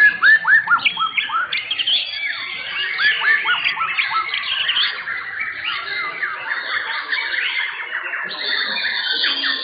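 White-rumped shamas (murai batu) singing at once: loud, fast, overlapping whistled song with quick, repeated arching notes in the first few seconds.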